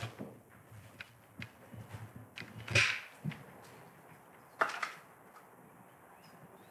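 Handling of an old painted wooden door: scattered knocks and clicks, with a short scraping rustle about three seconds in and a sharp knock just before five seconds.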